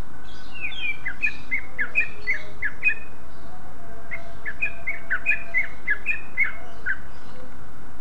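Greater green leafbird (cucak ijo) calling: two runs of short, sharp notes, many sliding downward, several a second, with a pause of about a second between the runs. A steady hiss lies underneath.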